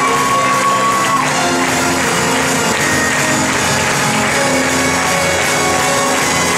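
High school show choir singing with its backing band in the closing bars of a song, with some shouts from the audience.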